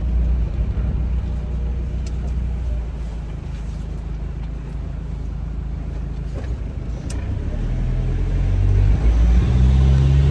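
Motor vehicle engine running steadily, then picking up speed, rising in pitch and getting louder in the last couple of seconds.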